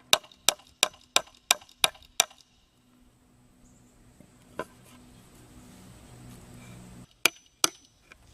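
Hammering: seven quick blows at about three a second, a single blow in the middle, then two more blows near the end.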